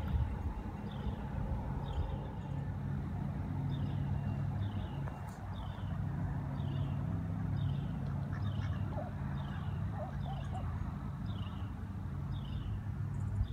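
A steady low mechanical hum, with a short, high, falling double chirp repeating about once a second over it.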